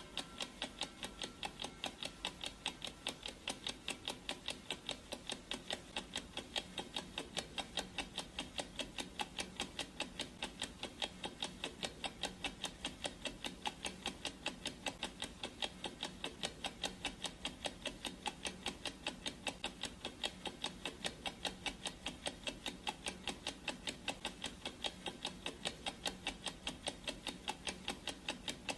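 Clock ticking sound effect: an even, steady train of ticks, several a second.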